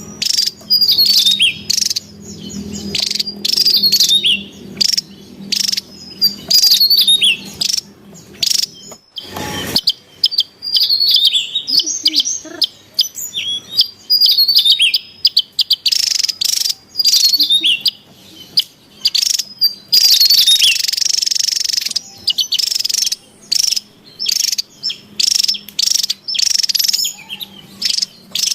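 Javan tesia calling busily: quick series of sharp, high chirps and downward-slurred notes in stop-start bursts, with a harsher, hissing scold about twenty seconds in.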